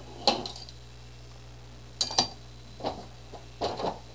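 Metal hand tools and hardware clinking and knocking as they are handled and set down: one clink just after the start, then a run of separate clinks and knocks over the last two seconds.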